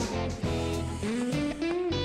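Background music: electric guitar playing over bass, with sliding notes.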